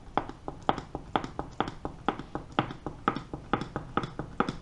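Hand-operated pump pack being worked to pump oil into a lathe's quick-change gearbox: a sharp click on each stroke, about two strokes a second, with fainter clicks in between.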